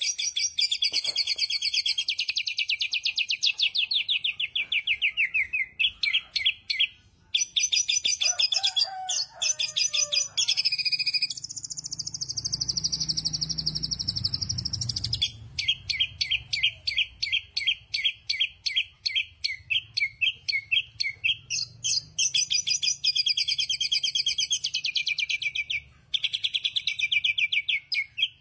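A caged samyong bulbul singing nonstop: long runs of fast, high chirping notes repeated several times a second, broken by a few brief pauses. Around the middle there is a drawn-out higher note.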